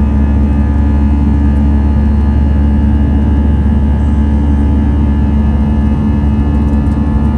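Cabin noise inside an Airbus A319-111 in its climb after takeoff: the steady drone of its CFM56-5B turbofan engines over a deep rumble, with several steady hum tones and a rush of air.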